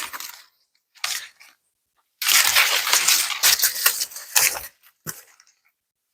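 Ears of corn being snapped off their stalks by hand, with the dry husks and leaves crackling and rustling. It comes in several bursts, the longest lasting about two and a half seconds.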